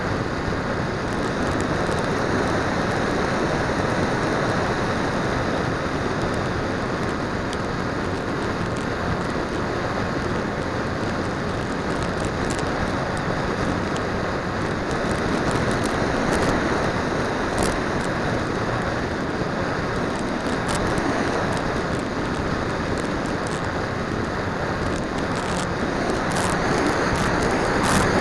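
Steady rush of wind and motor-and-propeller noise from an R/C flying wing in flight, picked up by the onboard 808 #16 keychain camera's microphone. It swells slightly a few times as the plane banks and speeds up.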